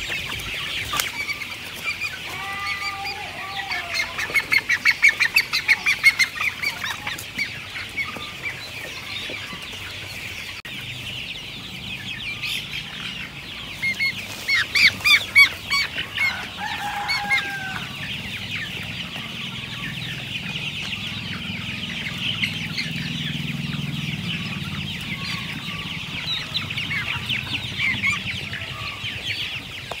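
Young chickens peeping and clucking while foraging, with two loud bursts of rapid repeated calls, about four seconds in and again about fourteen seconds in, over a steady high chirring background.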